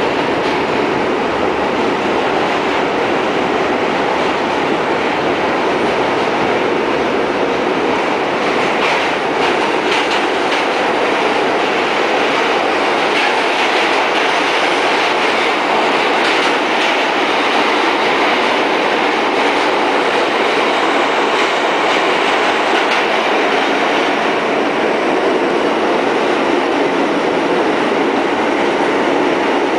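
Kawasaki R68A subway car running at speed, heard from inside: a steady, loud running noise of wheels on rail with occasional clicks, some bunched together about a third of the way in.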